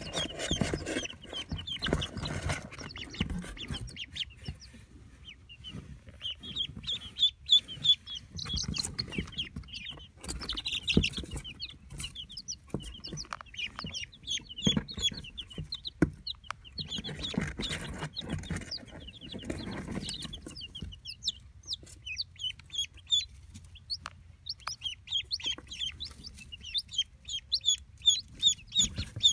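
Baby chicks and ducklings peeping, a steady stream of rapid high cheeps, with bursts of rustling and a few sharp knocks now and then.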